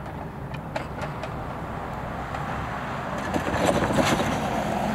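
Road traffic noise, with a passing vehicle swelling louder about three seconds in.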